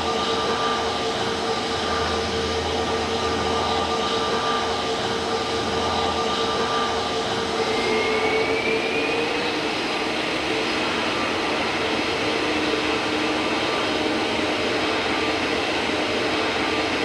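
Jet airliner engines running: a steady rushing noise with several whining tones, one of which rises slightly about eight seconds in while a lower one drops soon after.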